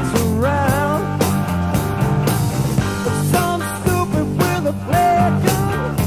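Rock music with a steady beat and a lead line of bending notes.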